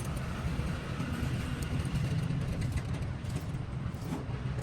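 A steady low engine rumble, with a few faint light clicks over it.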